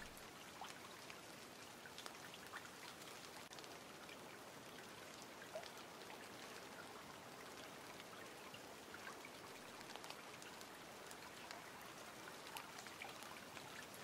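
Faint steady hiss with many small scattered ticks.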